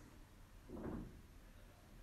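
Near silence: room tone, with one faint, soft, brief sound a little under a second in.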